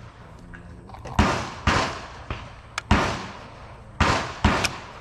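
Five gunshots on a shooting range, each a sharp report with a short echoing tail: two close together about a second in, one near the three-second mark, then two more close together near the end.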